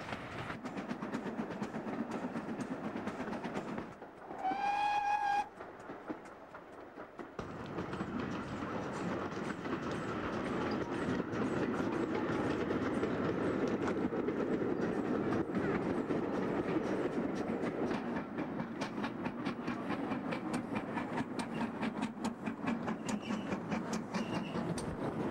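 Great Western Railway steam locomotive hauling a passenger train: a steady rumble with rhythmic clicks running through it. One steam-whistle blast about a second long sounds about four seconds in.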